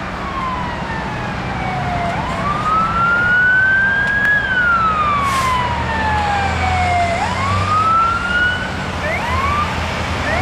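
Emergency-vehicle siren wailing, its pitch sliding slowly down and back up over several seconds at a time, with a few short upward sweeps near the end. A truck engine rumbles underneath, louder around the middle and at the end.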